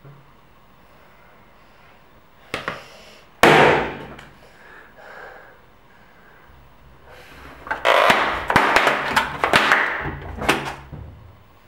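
A couple of knocks, then one loud sharp bang about three seconds in. Near the end comes a few seconds of rapid metallic clattering and rattling as a key is fumbled hurriedly in a door lock.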